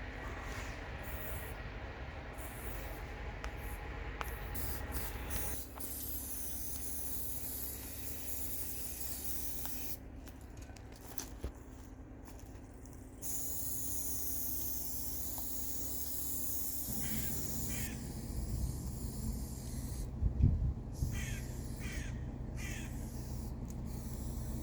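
An aerosol spray-paint can hissing in long sprays, stopping and starting, two of them several seconds long. A steady low hum runs underneath.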